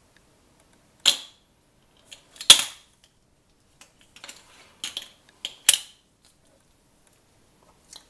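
Hard plastic coin capsules holding £2 coins clacking as they are handled and set down among others on a wooden table: a sharp clack about a second in, a louder one about two and a half seconds in, then a quick run of lighter clicks and one more sharp clack before six seconds.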